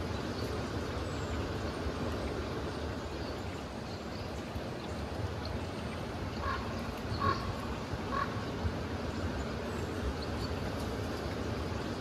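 Steady outdoor background noise, with three short animal calls, evenly spaced, about halfway through.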